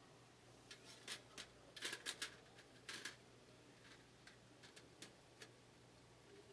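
Light clicks and taps of flower crabs' shells and legs being set down on the perforated metal tray of a steamer pot. A quick cluster of sharper clicks comes about two to three seconds in, then scattered fainter ticks.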